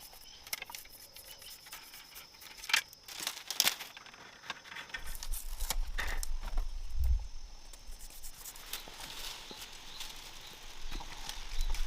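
Scattered sharp clicks, crackles and rustles, over a faint steady high tone in the first few seconds and a low rumble that starts about five seconds in.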